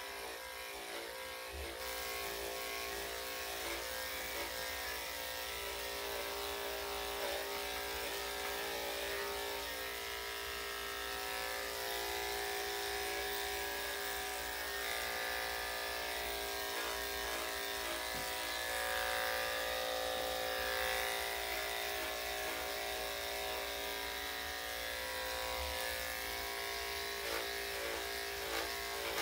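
Corded electric dog clippers running steadily with a buzzing hum as the blade clips damp, matted hair under a small dog's neck.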